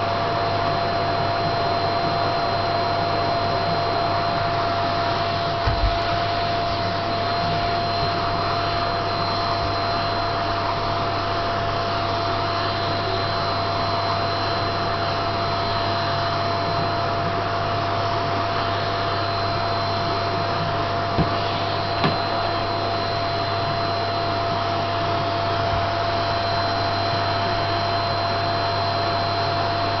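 Vacuum cleaner running steadily with a constant whine, its nozzle passed over a Shih Tzu's coat; a few brief knocks.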